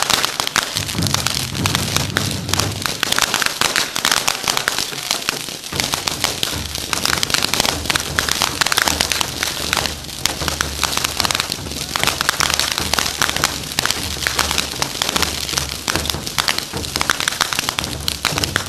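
Fireworks set on a burning effigy going off without a break: a dense, continuous crackling with many sharp pops from fountains, roman candles and small aerial bursts.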